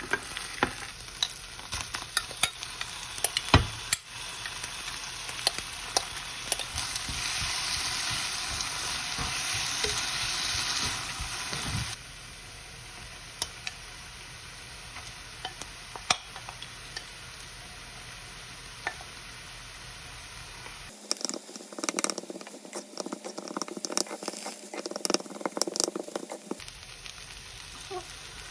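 Food frying in a pan with a steady sizzle, stirred with a utensil that clicks and scrapes against the pan. The sizzle is loudest between about 7 and 11 seconds, and the sound changes abruptly a few times.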